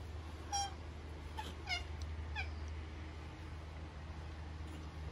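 Koala giving short, squeaky mewing cries, four in about two seconds, the later ones falling in pitch, over a steady low hum.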